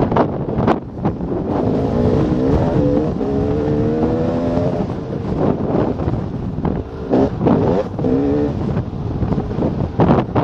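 KTM 300 XC-W's two-stroke single-cylinder engine pulling the dirt bike along, its pitch climbing twice as it accelerates, under heavy wind buffeting on a helmet-mounted microphone.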